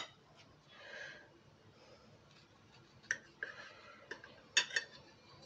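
Table knife cutting through a baked apple sponge cake on a ceramic plate: quiet scraping with a few light clicks, then two sharper clinks of the blade against the plate about four and a half seconds in.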